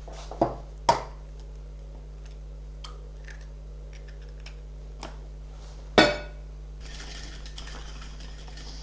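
Kitchen utensils knocking against a bowl while eggs are being whipped by hand: a few light knocks, a loud ringing clink about six seconds in, then soft steady scraping.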